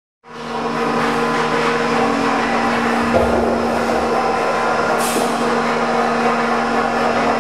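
A steady, dense droning sound with several held low tones, starting about a quarter second in and staying level throughout.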